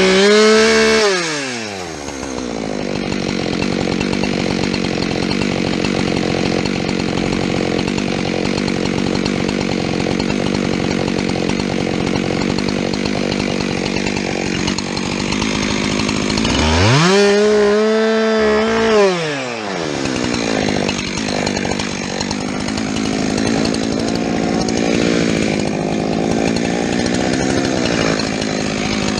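Gas chainsaw cutting into fir, its engine held down under load in the wood for long stretches. It revs up freely and drops back twice, at the start and a little past halfway.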